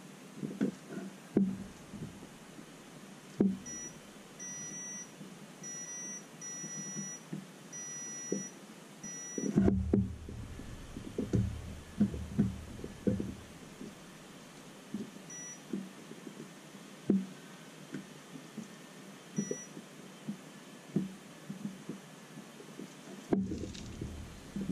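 Digital multimeter's continuity beeper giving a run of short, high, steady beeps as test probes touch points on a circuit board, then two brief beeps later on: each beep marks a connection between the probed points. Light clicks and taps of the probes and board handling come and go throughout.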